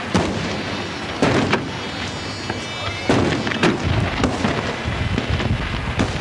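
Daytime fireworks going off overhead: a string of sharp bangs and booms, irregularly spaced about a second or less apart, each trailing off in a rumbling echo.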